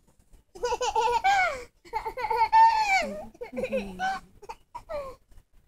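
A baby laughing and squealing in a run of high-pitched bursts that rise and fall.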